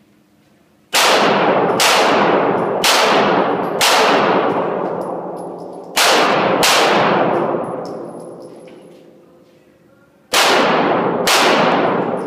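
Handgun fired in three strings: four shots about a second apart, then two, then two more, each shot ringing out in the echo of an indoor range.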